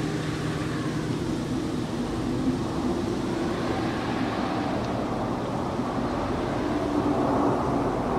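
Steady rushing wind on an action camera's microphone, with the hiss of skis and then a snowboard cutting through deep powder snow.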